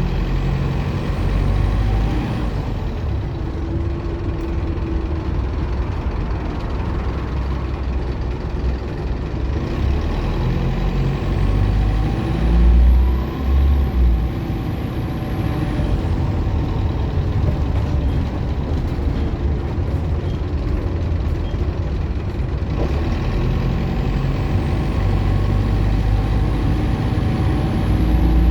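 Optare Solo M950 bus running, with a low diesel rumble under a high turbocharger whine that climbs in pitch twice as the bus gathers speed.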